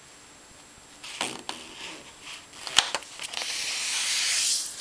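Construction paper being handled and folded on a glass tabletop: a few rustles and two sharp taps, then a longer scratchy rustle near the end as the paper is pressed and slid to crease the fold.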